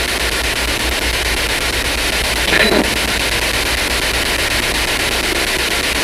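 Spirit box radio sweeping through stations, giving a steady hiss of static over a low hum, with one brief burst of sound about two and a half seconds in.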